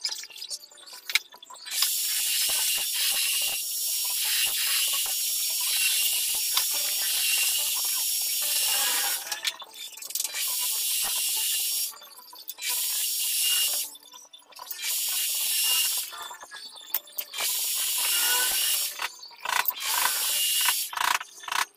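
Small metal lathe turning a round metal bar, the cutting tool making a steady high hiss with a few ringing tones. The cutting sound stops and starts several times, breaking off briefly about 9, 12, 14 and 19 seconds in.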